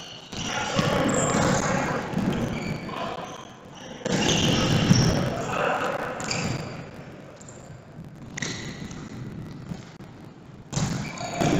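Thuds of a futsal ball being kicked and bouncing on a hard hall floor, with players' voices echoing in the hall.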